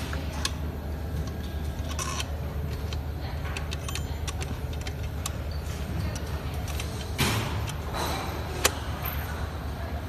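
Light metallic clicks and rattles of a smart door lock's handle and panel being handled and fitted by hand, with a brief scrape about seven seconds in and a sharp click near the end, over a steady low hum.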